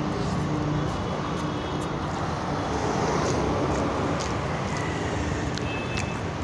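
Steady street traffic rumble with a faint hum in it, and a few small high clicks scattered through.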